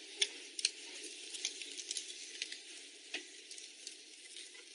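Faint hiss with a few scattered light clicks and scrapes: a utility knife blade trimming excess window insulation film along the frame.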